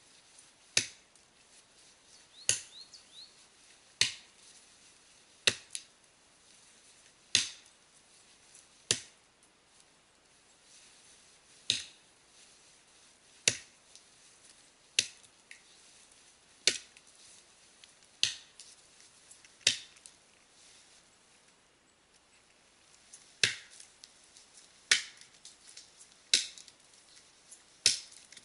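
Axe chopping upward into the fall-cut of a standing conifer trunk: sharp, single strikes about every second and a half, around sixteen in all, with two brief pauses between runs of blows.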